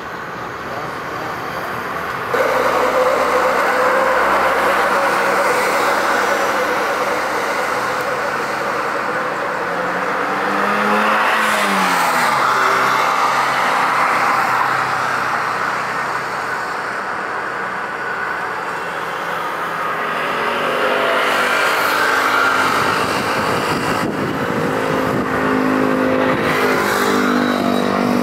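Jet airliner engines passing close by: a loud, steady rush with a tone that rises and then falls about halfway through. The sound jumps suddenly louder about two seconds in.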